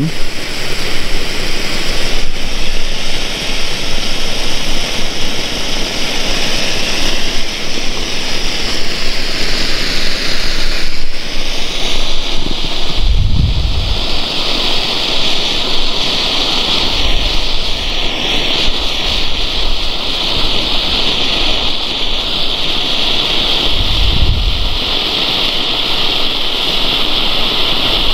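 Red stadium flare (Thunder Fireworks Stadionfakkel Rood) burning with a loud, steady hiss that grows stronger and brighter about twelve seconds in. A few short low rumbles of wind on the microphone come and go.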